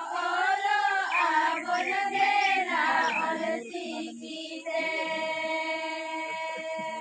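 A group of Santali women singing a Santali song about the Ol Chiki script together; the voices move through a phrase, then settle on one long held note from about five seconds in.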